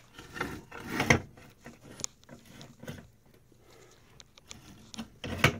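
Handling noises of a 3D printer's Z-axis threaded rod and aluminium frame: scattered light taps, clicks and rubs of metal parts, with a louder knock about a second in and another near the end, as the rod is worked up toward its coupler.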